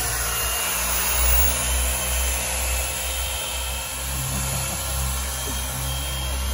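Electric car polisher with a foam pad running steadily against a truck's painted panel, buffing out clear-coat scratches.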